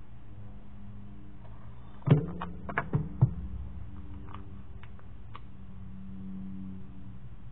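Craft materials being handled: about two seconds in, a quick run of five or six sharp clicks and knocks, then a few faint scattered ticks, over a steady low hum.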